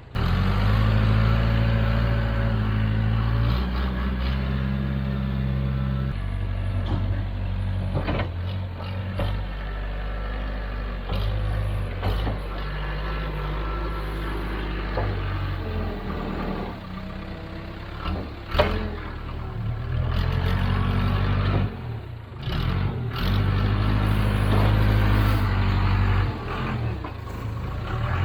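Case 580K backhoe's diesel engine running and working as it digs, its note stepping up and down with load, with a few sharp clanks from the digging.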